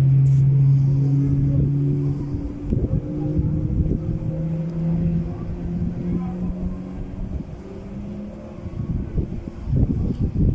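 Motorboat engines droning steadily, the tone weakening after about two seconds and then rising slowly in pitch as the boats speed over the water. Wind buffets the microphone throughout, gusting harder near the end.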